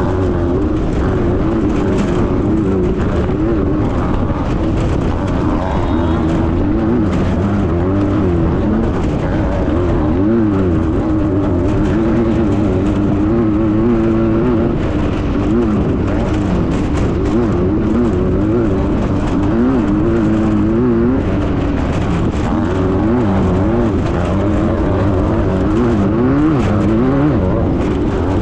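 Air-cooled Volkswagen engine of a Class 9 off-road race buggy running hard, its revs constantly rising and falling. Frequent knocks and rattles come through over the engine.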